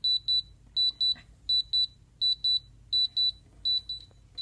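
Spektrum radio transmitter beeping in bind mode: short high-pitched double beeps repeating evenly, about one pair every 0.7 seconds, while it binds to the micro quadcopter.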